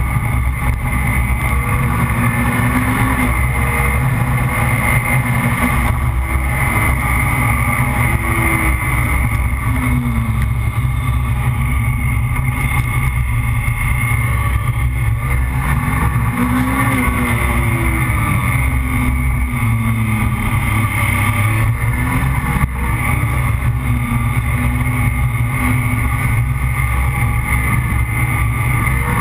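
Vehicle engine running with a heavy, steady low rumble of tyre and wind noise, the engine pitch rising and falling every few seconds as the vehicle speeds up and slows down on an unpaved road.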